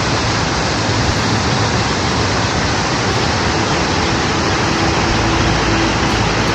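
Waterfall rushing steadily: loud, even noise of falling water.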